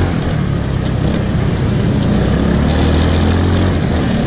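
Honda Scoopy 110cc scooter's single-cylinder four-stroke engine running while riding through traffic, with steady wind noise on the microphone. The low engine hum eases briefly near the start and comes back strongly about two seconds in.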